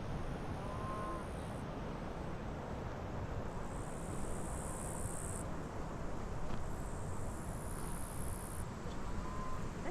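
Insects chirring in two high-pitched spells over a steady rushing background.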